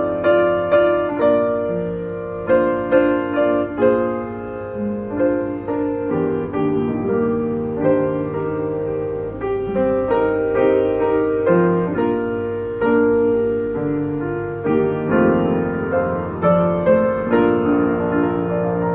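A 1986 Yamaha UX1 upright piano being played: a melody over chords, each note struck sharply and then fading, with frequent accented attacks.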